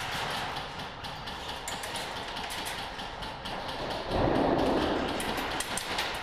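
Airsoft guns firing in a large warehouse hall: a steady rattle of quick shots and clicks, echoing off the walls. A louder burst of noise comes about four seconds in.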